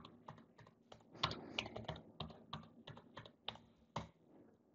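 Typing on a computer keyboard, entering a PIN: a faint, uneven run of separate key clicks that stops near the end.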